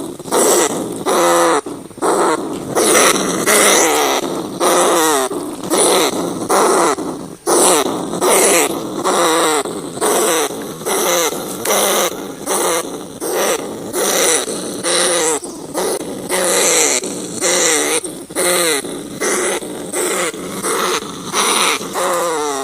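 Rats squealing and chattering in a continuous series of short, harsh calls, many falling in pitch, repeating about once a second.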